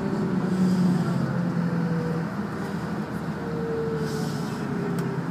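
Route bus driving, heard from inside the passenger cabin: a steady engine hum whose pitch drifts slightly, over road noise.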